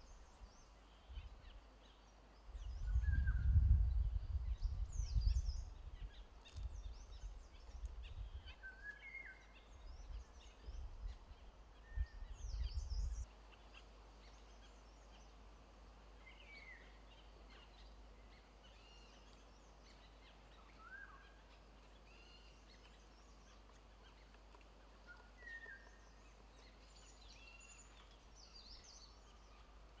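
Woodland ambience of scattered short chirps and calls from small birds, with a low rumble that is loudest from about three to six seconds in and again briefly around twelve seconds.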